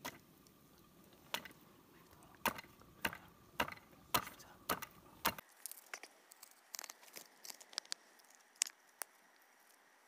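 Heavy knife chopping through a raw whole chicken on a board: sharp chops about every half second, then lighter, irregular cuts and knocks from about five seconds in.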